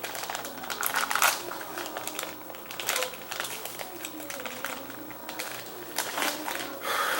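Packaging rustling and crinkling, with irregular clicks and knocks, as boxed LED light strips are unpacked by hand.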